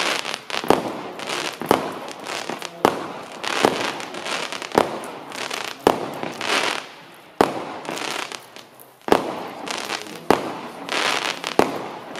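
Celtic Fireworks 'Bite Me Harder' multi-shot firework cake firing: a sharp bang about once a second, with a crackling hiss between the shots.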